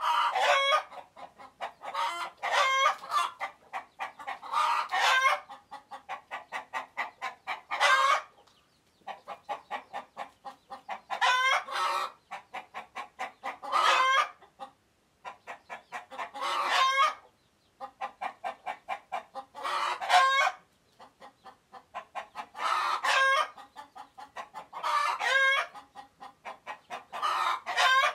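Chicken giving its alarm call: runs of rapid short clucks, each ending in a louder, drawn-out squawk, repeated about every two to three seconds. It is a warning call at a person standing too close.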